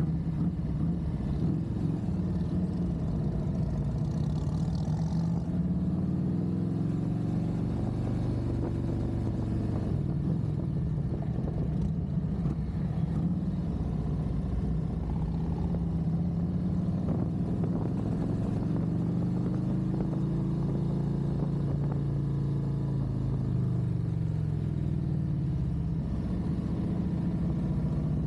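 Harley-Davidson V-twin motorcycle engine running on the road, its pitch rising and falling as the rider works the throttle and gears, over a steady low rumble.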